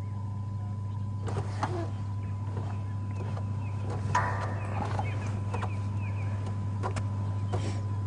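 A game-drive vehicle's engine idling steadily, with faint bird chirps and a short pitched animal call about four seconds in.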